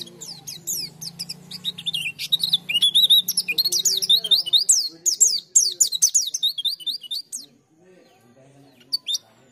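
A caged white-eye (pleci) singing a fast, busy run of high, quick falling chirps that stops short about seven seconds in, followed by a couple of single notes near the end.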